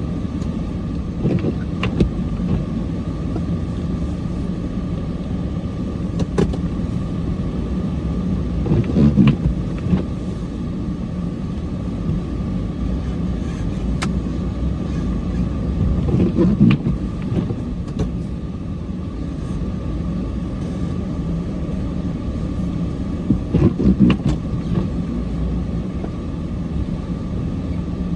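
Snowplow truck engine running steadily while plowing snow, a continuous low drone with a steady whine above it. Scattered knocks and clunks come through, with three louder, rougher stretches spaced about seven seconds apart.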